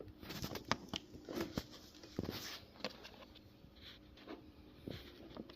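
Plastic parts of a pedestal fan being handled: scattered light clicks and knocks with a few short scrapes as the rear grille is pushed and worked onto the motor housing by hand.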